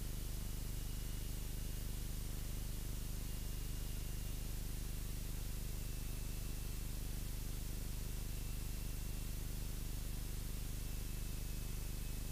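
Cessna 172's engine and propeller droning steadily inside the cockpit, heard muffled under a steady hiss, with a faint high whine that slowly sinks in pitch.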